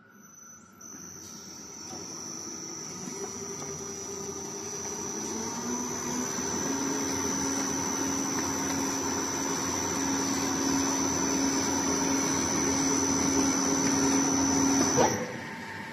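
Spiral duct forming machine running, rolling sheet-metal strip into spiral-seamed round duct: steady mechanical machine noise with a high steady whine, growing gradually louder, that stops abruptly about a second before the end.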